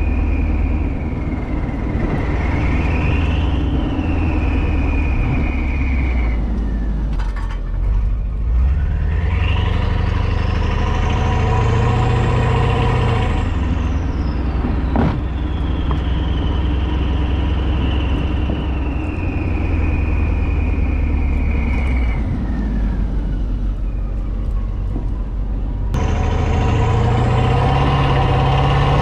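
Exhaust of a Mercedes S550's twin-turbo V8, fitted with catless downpipes and a resonator delete, heard from behind the car while driving. The engine note climbs under acceleration, then drops away as the car eases off, with road and tyre noise underneath.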